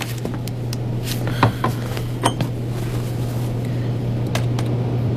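A few light clinks and taps from a ceramic mug being handled, some with a brief ring, over a steady low hum.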